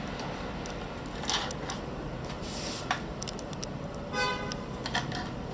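Hands loosening the adjustable working platform of a pneumatic crimping machine: a few light clicks and rubbing over a steady background hiss. A short pitched tone sounds once, about four seconds in.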